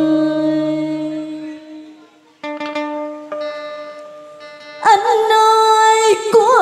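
Live cải lương music: a held note fades out, then a plucked string instrument plays a few sparse notes, and about five seconds in a woman's singing voice comes back on a loud, wavering note.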